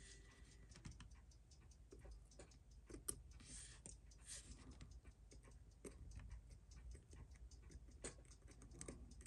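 Faint run of small, closely spaced ticks and clicks from a Seiko 6309 automatic watch movement sitting open in its case while steel tweezers work on it.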